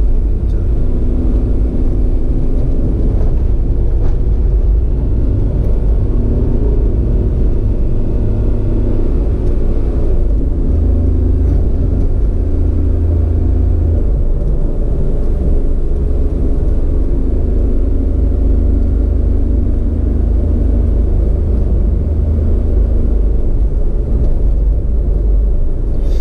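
Vehicle engine running steadily while driving, under a heavy, steady low rumble from wind and road on the onboard microphone. The engine's pitch wavers a little as the speed changes.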